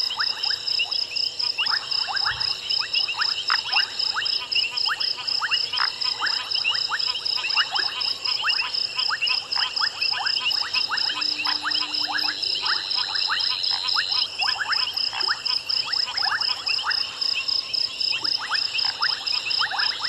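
A chorus of frogs calling at night, many short calls overlapping and repeating all through, over a steady, rapid high-pitched trill.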